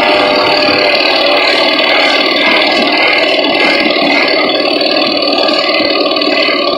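A pack of mopeds with their small engines idling and running together at once, a dense steady buzz of many overlapping engine notes.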